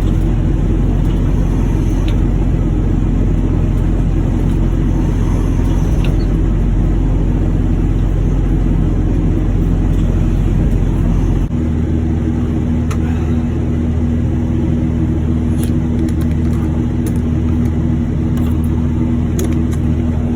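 Heavy machinery running with a loud, steady low hum. About eleven seconds in it changes abruptly to a different steady hum with a clearer pitch.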